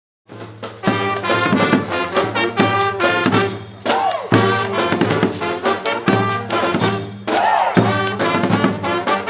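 Brass band playing: trumpets and trombones over a steady low bass line, starting about a quarter second in.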